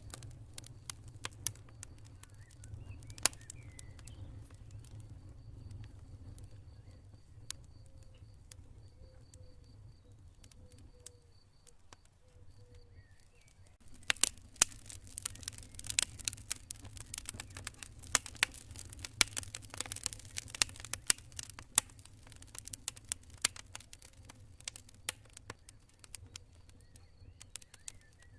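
Campfire crackling, with many sharp pops and snaps over a steady low rumble from the burning wood; the crackles thin out briefly, then come thicker and louder about halfway through. A cricket chirps in a fast, even pulse for several seconds early in the stretch.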